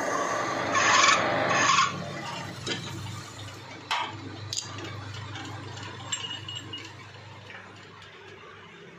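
Metal lathe turning a steel shaft, the cutting tool scraping on the metal with two loud bursts in the first two seconds. After that it is quieter, with a low hum and a couple of sharp metal clicks about four seconds in.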